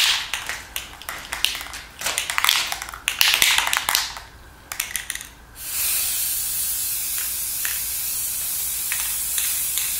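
An aerosol can of Rust-Oleum flat white primer: first an irregular clicking rattle for about five seconds, then from about six seconds in a steady hiss as the can sprays.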